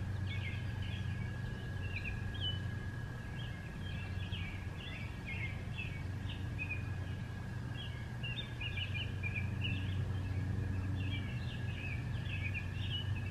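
Birds chirping and singing outdoors: a continuous run of short chirps over a steady low rumble, with a faint steady high tone throughout.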